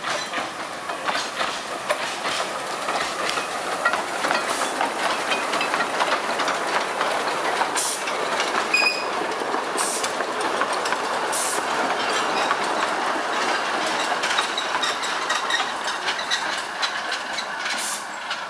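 Narrow-gauge steam train rolling past at low speed: a steady clicking and rattling of wheels on rail joints and of the wooden coaches, with a few brief hisses and a short squeal about nine seconds in.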